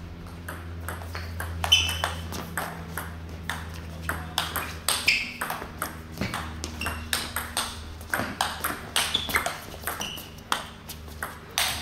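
Table tennis rally: the ball clicking back and forth off the bats and the table in a long string of sharp taps, about two or three a second.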